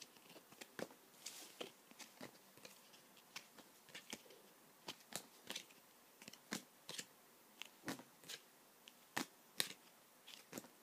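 A stack of football trading cards handled by hand, each card slid off the pile and held up: faint, irregular clicks and rustles of card edges, roughly one or two a second.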